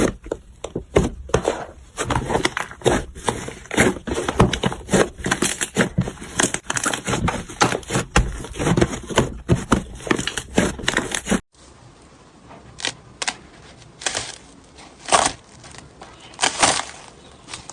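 Slime being squeezed and poked, giving dense crackling and popping clicks. About 11 seconds in the sound cuts to another take, where the pops come more sparsely.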